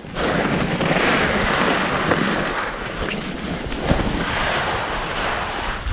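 Rushing hiss of skis sliding over snow, with wind buffeting the camera microphone; it swells and eases, with a light knock about four seconds in.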